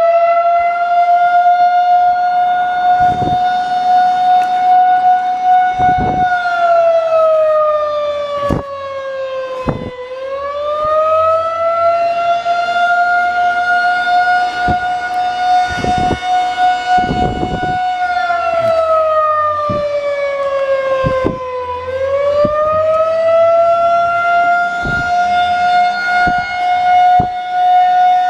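Outdoor warning siren sounding a wail: a loud, steady tone that twice slides down in pitch and winds back up. Occasional brief knocks sound over it.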